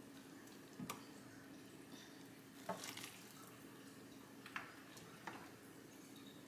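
Near silence: a faint steady hum with about five soft, brief taps and clicks, small kitchen handling sounds around a pan of crumbled cornbread being moistened with hot broth.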